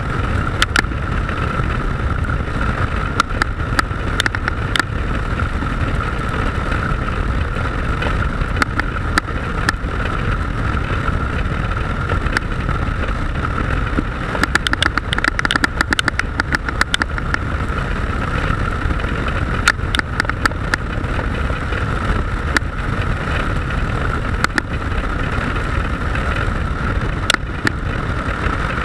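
Onboard sound of a motorcycle riding at a steady speed: wind rushing over the microphone with the engine's steady drone underneath, and short clicks and knocks scattered throughout, thickest about halfway through.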